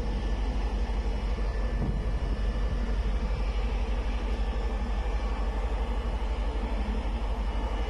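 Strong storm wind buffeting the microphone, a steady dense low rumble with the rush of wind and rough sea over it.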